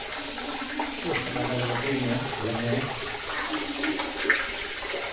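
Spring water running steadily through the cave, an even splashing hiss. A man's voice talks indistinctly under it between about one and four seconds in.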